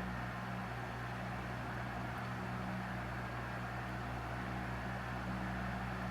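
Electric fan running steadily at medium speed, about 1250 rpm: a constant motor hum under the rush of air from the blades.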